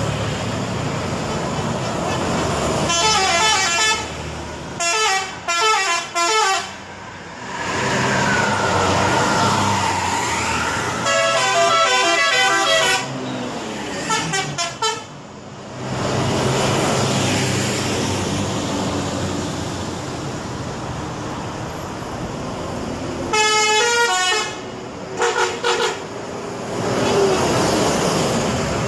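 Indonesian bus 'telolet' multi-tone horns playing short melodic tunes of rapidly changing notes. They sound in three groups of bursts, near the start, in the middle and near the end, over the running engines and road noise of passing buses.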